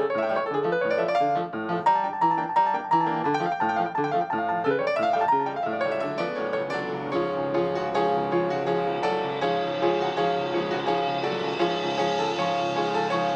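Yamaha piano played fast, with quick runs and two rising sweeps up the keyboard in the first half, then longer held, ringing chords.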